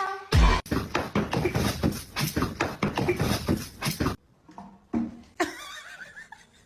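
A pet animal making sounds: many short, noisy sounds in quick succession, then quieter from about four seconds in, with a few separate sounds after that.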